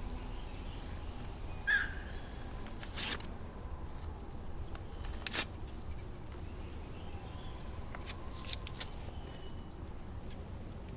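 Outdoor woodland ambience: scattered small bird chirps over a low steady rumble, with a few short sharp sounds about 2, 3, 5.5 and 8.5 seconds in.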